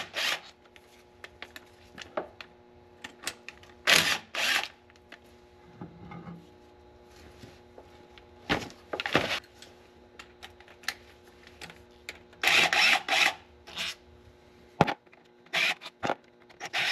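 Cordless DeWalt driver running in short bursts as it spins bolts out of the automatic transmission's pan and valve body, with clicks and clinks of bolts and tools between the bursts. A faint steady hum runs underneath.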